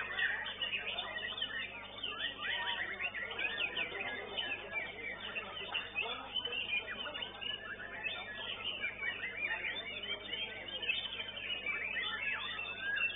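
Many white-rumped shamas (murai batu) singing at once, a dense overlapping tangle of quick rising and falling whistles and chirps. The high notes are cut off, as heard through a CCTV microphone.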